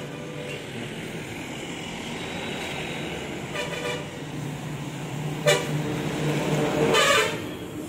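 Road traffic: a steady low engine hum, broken by short vehicle horn toots, about three of them a couple of seconds apart, the loudest in the last two seconds.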